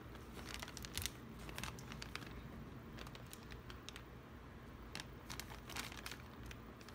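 Thin clear plastic bag crinkling as hands handle it, faint irregular crackles.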